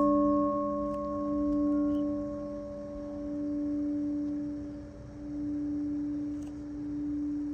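Singing bowls ringing: one bowl, struck just before, rings with several overtones that slowly die away. Under it a steady lower tone keeps sounding, swelling and fading about every two seconds.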